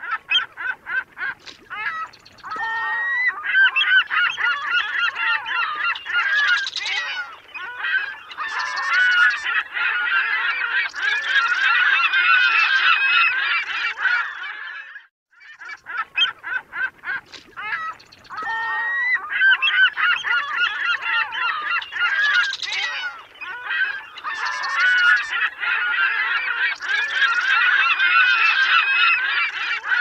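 A flock of gulls calling: many harsh cries overlapping. The calling breaks off for a moment about halfway and then starts again in the same pattern, as if the recording repeats.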